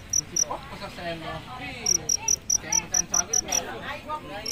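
A cricket chirping in a fast, even rhythm of about five short, high-pitched pulses a second. It stops about half a second in and starts again near the two-second mark.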